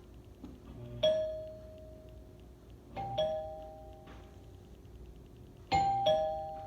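Two-tone doorbell chime. A single low 'dong' sounds about a second in, then a high-low 'ding-dong' at about three seconds and another near the end, each tone ringing on and fading.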